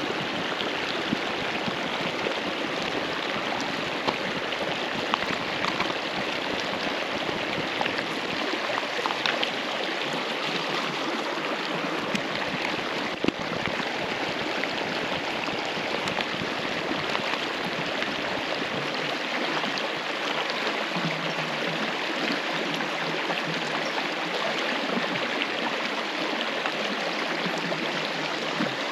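Creek water flowing steadily, with a few faint ticks.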